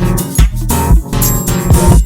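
Background pop music between sung lines: a steady beat with bass and guitar.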